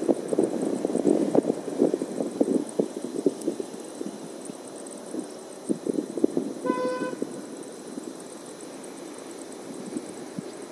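A vehicle horn toots once, a single short tone about two-thirds of the way through, over an outdoor background of irregular low thumps that fill the first half.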